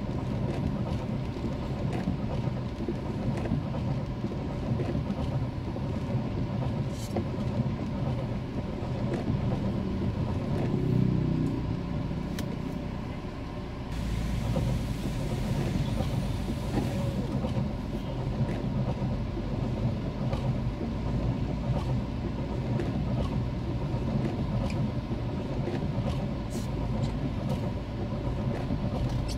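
Car driving on a rainy road, heard through a dashcam: steady engine and road rumble with scattered faint clicks, and a brief rush of hiss about fourteen seconds in, after which the low rumble is stronger.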